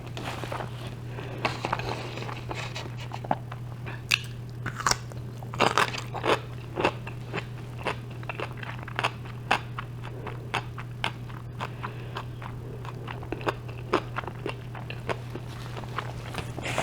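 Close-miked chewing of a bite of gyro: irregular wet, swishy mouth sounds with sharp crunches from pickle and vegetables. A steady low hum runs underneath.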